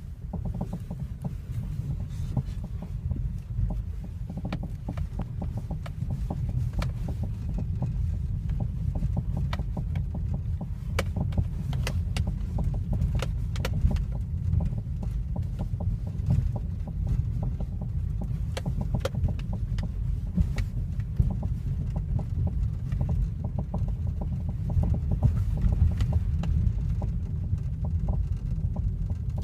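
First-generation Kia Cerato on the move: a steady low road rumble with repeated, irregular sharp knocks from the front left of the car. The cause of the knock is unknown; a diagnostic check found nothing.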